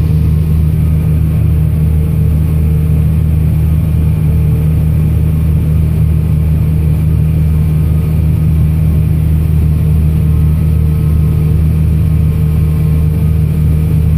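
A tractor engine runs at a steady speed, heard from inside its cab as a constant low drone with no changes.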